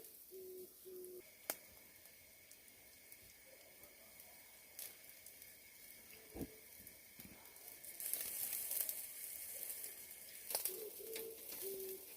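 A dove coos briefly at the start. Then comes a faint steady sizzling hiss with a thin high tone in it, marked by one soft knock about six seconds in. The hiss grows louder about eight seconds in.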